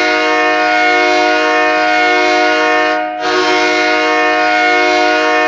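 Hockey arena goal horn blowing a loud, steady chord of several tones. It breaks off briefly about three seconds in, then sounds again.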